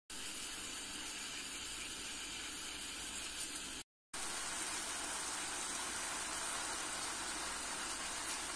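Cherries and sugar sizzling and bubbling in a pan on the stove, a steady soft hiss as the sugar melts and the cherries release their juice. There is a brief dropout about four seconds in.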